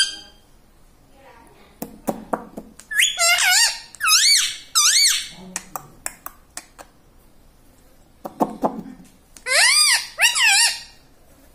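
Ringneck parrot squawking: runs of short, shrill calls that sweep up and down in pitch, in two bouts, a few seconds in and again near the end.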